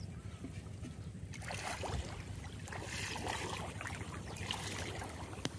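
Shallow water sloshing and splashing as a man wades along a gill net and a caught catfish thrashes in it, starting about a second and a half in, over a steady low hum.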